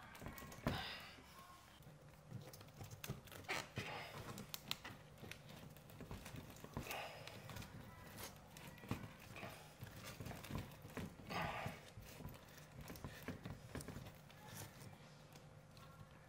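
Split spruce root being pulled through stitching holes in birch bark and drawn tight: faint, irregular scraping and rustling swishes, with small taps and clicks as the bark and root are handled.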